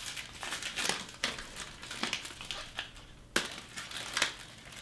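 Wrapper of an espresso chocolate bar crinkling and crackling in the hands as it is opened, in irregular sharp crackles.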